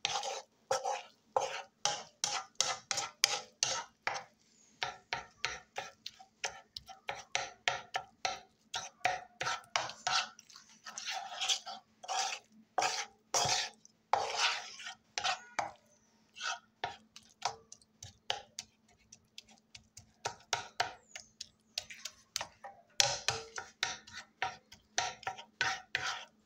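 Wooden spoon scraping and knocking against a pan while stirring and breaking up scrambled eggs: rapid, irregular strokes, several a second, thinning out for a few seconds past the middle.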